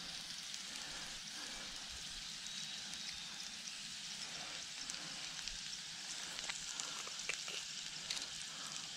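Sliced potatoes and onions frying in oil in a cast iron pan, a steady sizzle, with a few faint clicks in the second half.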